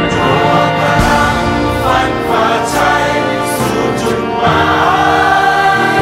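Music with many voices singing together in sustained, choir-like lines.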